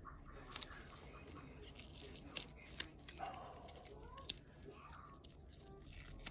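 Faint crinkling and a few small clicks of plastic wrapping and a seal being peeled off a small square pot of solid gel polish by gloved hands.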